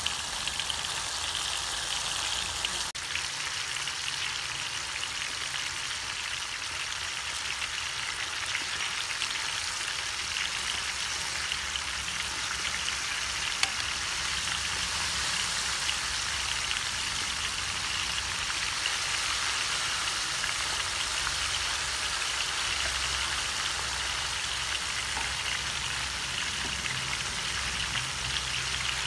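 Batter-coated banana pieces deep-frying in a wok of hot oil: a steady, dense sizzle.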